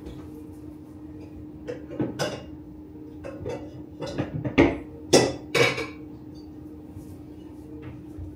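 Kitchen pots and dishes being handled: a scattering of knocks and clinks, loudest a little past the middle, over a steady low hum.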